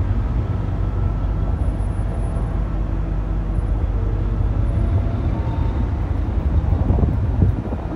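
NDJ3 diesel train standing at a platform with its diesel engine idling: a steady low drone.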